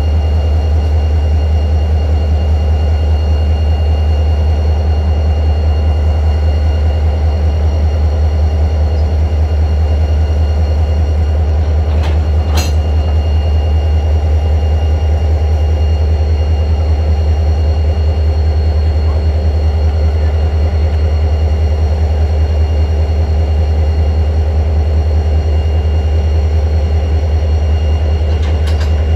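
Diesel locomotive engines idling with a deep, even rumble. Two short sharp clicks sound over it, about twelve seconds in and again near the end.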